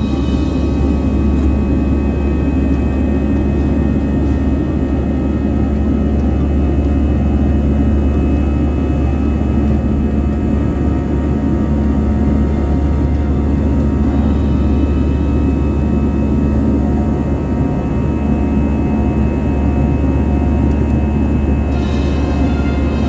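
Aircraft cabin noise heard from inside the plane: a steady, loud low roar of the engines and rushing air, with a constant whine of several steady tones on top.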